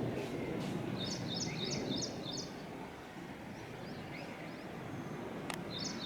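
A songbird calling, a quick run of five high chirping notes about a second in, starting again near the end, over a low steady outdoor rumble.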